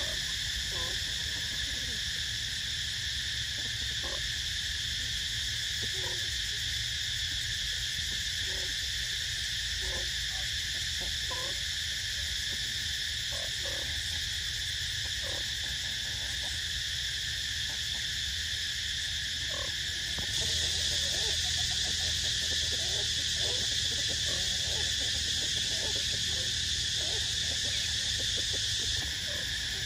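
Steady, high-pitched chorus of insects that grows louder about two-thirds of the way in and drops back near the end. Short, low calls from other animals sound on and off throughout.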